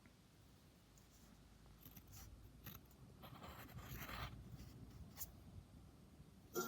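Faint scratching of a pen or pencil on paper in short irregular strokes, drawing. Guitar music comes in right at the end.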